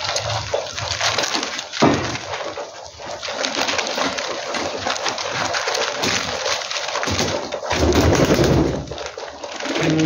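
A flock of pigeons feeding and fluttering: rapid wing flaps and scuffling around a grain tray on a dirt floor, with a sharp knock about two seconds in and a louder burst of close wingbeats around eight seconds in.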